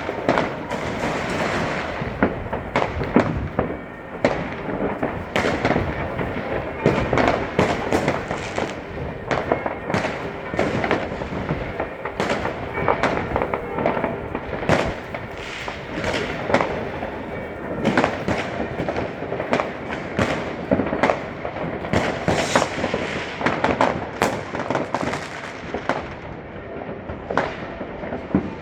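New Year's Eve fireworks: a dense, unbroken barrage of bangs and crackling firecrackers, many going off at once.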